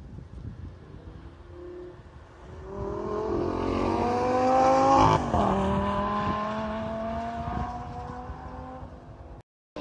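A Lamborghini sports car passing at speed on a race track: its engine note climbs as it approaches, peaks about five seconds in, drops in pitch as it goes by, then fades as it pulls away.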